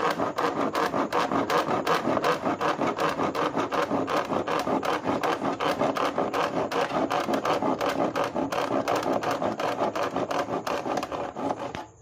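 Yellow-handled hand saw cutting through the blue plastic sheet of a flattened drum, in rapid, even back-and-forth strokes. The sawing stops abruptly near the end.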